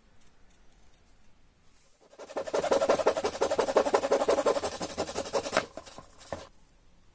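Fine-toothed handsaw cutting across a thin pine strip in quick back-and-forth strokes, starting about two seconds in and stopping about three and a half seconds later.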